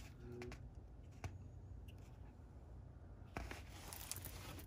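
Faint handling noise of a diamond painting canvas and its clear plastic cover film: a few soft clicks, then a light scratchy rustle that grows a little louder about three seconds in.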